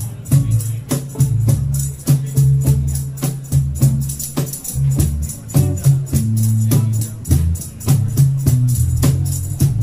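Small live band playing an instrumental reggae groove on electric guitar, bass and cajon with cymbals: a steady low bass line under regular percussion hits several times a second.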